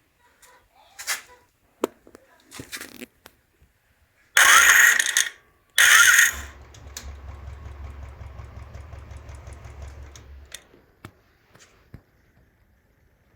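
Royal Enfield Classic 350 electric starter cranking with a loud harsh noise in two short bursts, the starter sound the owner reports as a fault of unknown cause. After the second burst the single-cylinder engine catches and idles with a steady low pulse for about four seconds, then stops. A few small clicks come before the cranking.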